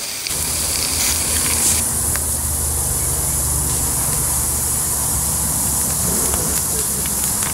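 Live-steam garden-scale model locomotive, an Accucraft Southern Pacific F4 2-10-2, standing in steam and hissing steadily. A steady low rumble runs underneath.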